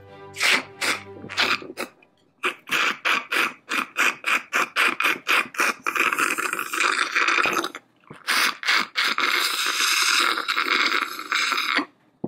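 A plastic straw jabbing and scraping inside a small plastic toy toilet cup, first in quick strokes about four a second, then in continuous rapid scraping with a brief pause. This is a mock plunging to unclog the toy toilet.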